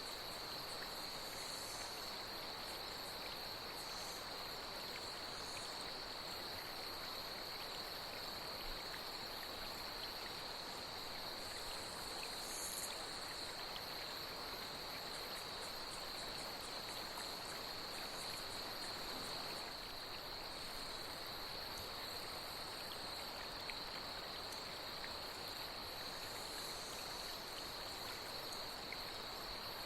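Night ambience of insects and water: a steady, high-pitched insect trill over the even rush of flowing water, with a few short, higher insect calls now and then.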